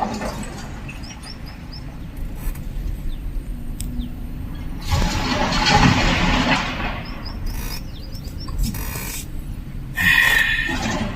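Heavy earthmoving machinery running with a steady low rumble, swelling into a louder rushing stretch for about two seconds midway and a harsher burst near the end. Short bird chirps come in two quick runs of about four, early and again late.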